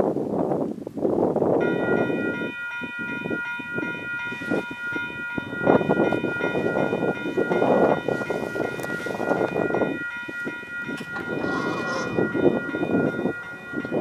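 Railway level-crossing warning bell starting about one and a half seconds in and ringing steadily as the crossing activates for an approaching train, with wind buffeting the microphone.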